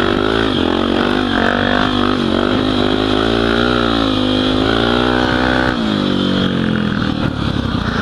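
Honda XR 250 Tornado's single-cylinder four-stroke engine under way on a dirt trail, its pitch rising and falling with the throttle. About six seconds in the throttle is closed and the engine winds down as the bike slows.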